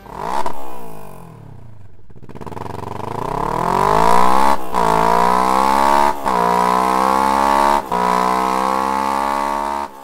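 Kawasaki Ninja 650's 649 cc 180-degree parallel-twin engine through an Akrapovic exhaust. It gives one sharp throttle blip, then accelerates hard through the gears: three quick upshifts, each a brief cut and drop in pitch before the note climbs again. The sound cuts off suddenly at the end.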